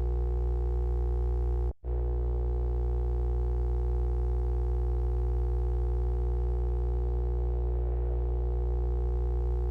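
Steady electronic drone of several held low tones, unchanging in pitch and level, that cuts out for an instant about two seconds in.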